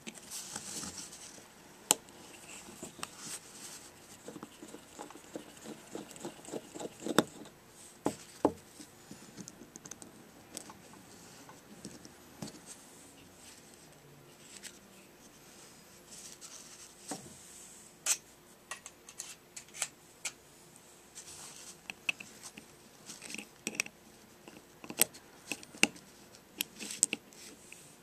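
Irregular sharp clicks, taps and light scraping of a screwdriver and small metal parts as a two-stroke engine carburetor is taken apart by hand: cover screws backed out and the cover and gasket lifted off.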